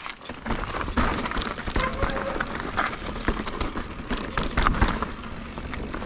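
Giant Reign full-suspension mountain bike rolling fast over rock slabs and dirt singletrack: tyres rumbling and crunching, with frequent knocks and rattles as the bike hits rock edges.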